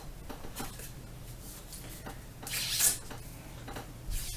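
A bore snake rope rubbing through or out of a rifle barrel, a short swish about two and a half seconds in, with faint handling ticks around it.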